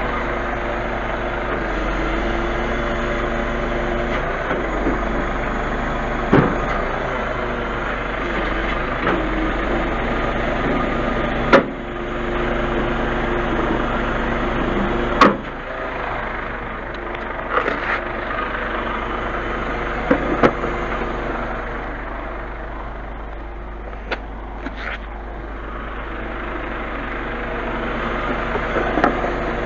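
Truck diesel engine idling steadily. A few sharp knocks stand out over it, the loudest about 11 and 15 seconds in.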